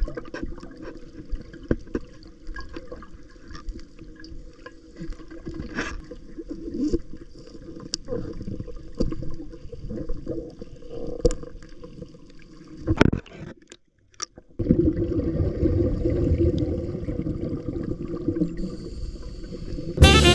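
Water sloshing and gurgling with many scattered small clicks and crackles. About fourteen seconds in it drops out briefly, then returns as a louder, steadier wash of water.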